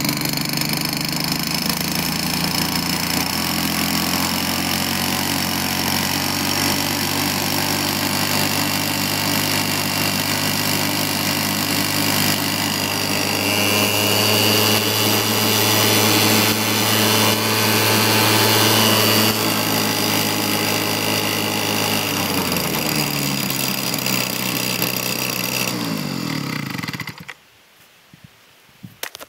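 Husqvarna 122HB two-stroke handheld leaf blower running, throttled up louder for several seconds about halfway through. It then winds down in pitch and cuts out near the end. The owner calls the motor really weak.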